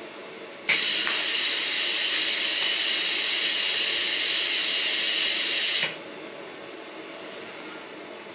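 TIG welding arc making a spot weld on two overlapping sheet-steel plates at about 90 amps, with the torch cup pressed down on the plates: a steady hiss that starts suddenly about a second in and cuts off about five seconds later.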